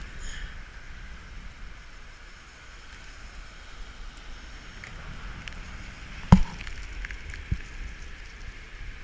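Steady beach ambience of wind and surf, with a few faint clicks of shells as fingers pick through loose shell hash. A sharp, loud thump comes a little past six seconds in, with a smaller one about a second later.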